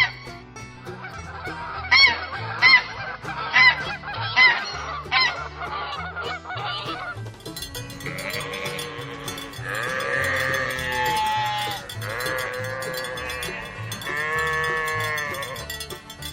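Geese honking in short, repeated calls. From about eight seconds in, long, wavering bleats take over, typical of goats or sheep.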